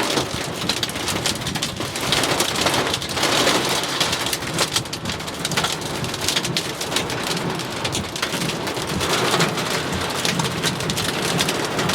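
Heavy, wind-driven thunderstorm rain pelting down hard, a dense steady hiss of countless drops striking.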